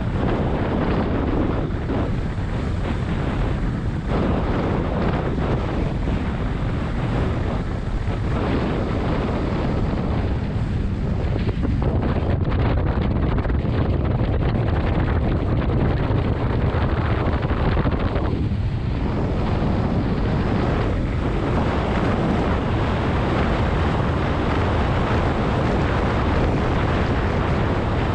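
Wind rushing over the microphone, with the rumble of engine and road noise, while riding in the open back of a moving pickup-truck taxi.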